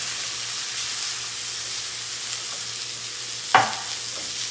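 Salmon fillet frying in butter in a stainless steel skillet, with a steady sizzle. One brief sharp sound stands out about three and a half seconds in.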